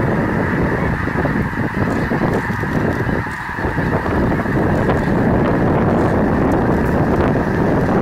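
A large flock of snow geese calling in flight: a dense, continuous din of many overlapping honks that eases briefly a little over three seconds in.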